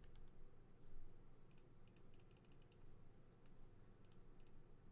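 Faint clicking of a computer keyboard and mouse: a quick run of clicks about a second and a half in and a couple more near the end, over a low steady hum.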